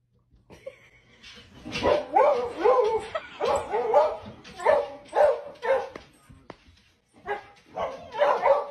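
Small dog yipping and whining excitedly in a quick string of high, pitch-bending barks, about two a second, with a short break near the end before starting again.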